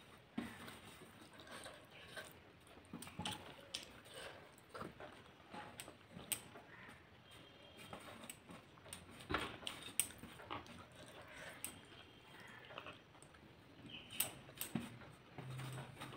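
Close-up hand-eating sounds: chewing and small mouth noises, with fingers gathering rice and chutney across a steel plate, making scattered sharp clicks and scrapes. A short low hum comes near the end.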